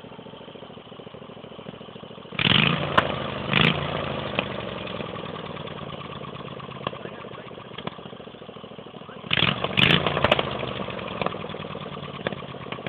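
Mini drag bike's small engine idling, then revved hard in two bursts, about two seconds in and again about nine seconds in, each dropping back to idle. Sharp cracks from the exhaust go off during the revs: backfiring.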